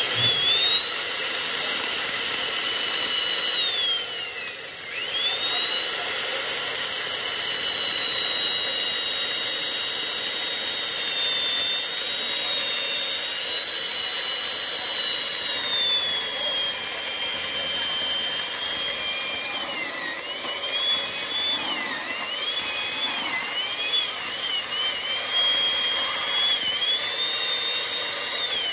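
Hand-held electric power tool working wood, with a high motor whine. It winds down about four seconds in and spins back up, and near the end its pitch dips and recovers again and again as it is pressed into the work.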